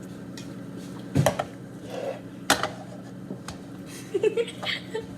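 Drink containers being handled and set down: two sharp knocks, about a second and two and a half seconds in, with a few lighter clinks over a steady low hum.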